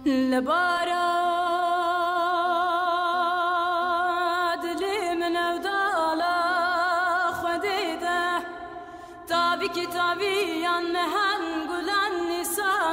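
A solo voice singing long held notes with wide, even vibrato, broken by quick ornamented runs between phrases, in a Middle Eastern folk style.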